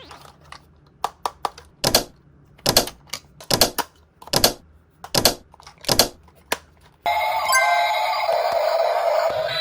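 Hard plastic toy pieces clicking and knocking as they are handled, about a dozen sharp taps spread irregularly over several seconds. Music starts about seven seconds in.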